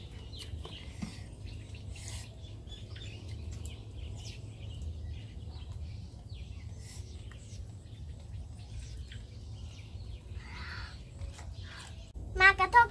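Faint bird chirps and small clicks and scrapes of metal spoons scooping passion fruit pulp from the shells, over a steady low rumble. Children's voices start abruptly near the end.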